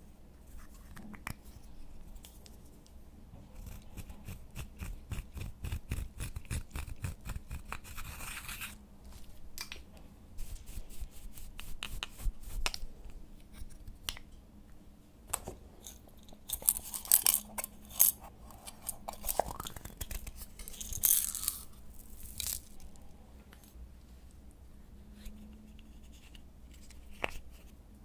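Slime being kneaded and stretched by hand: a run of quick sticky clicks and squelches, densest in the first several seconds, then sparser with a few louder, hissy smacks and pops.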